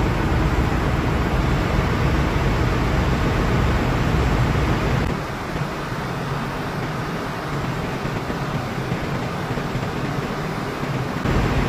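Steady machinery noise of a ship's engine room: a deep rumble with a hiss above it. The rumble drops away about five seconds in and comes back near the end.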